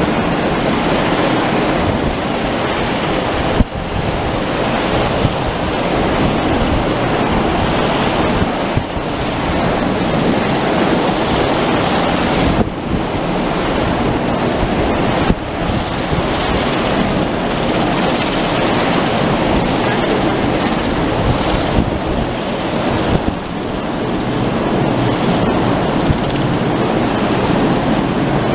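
Coast Guard rescue helicopter hovering close overhead: a steady, loud rush of rotor and engine noise, with its downwash buffeting the microphone.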